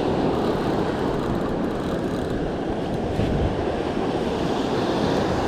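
Wind buffeting the microphone over the steady wash of breaking surf, a constant rushing noise without any distinct events.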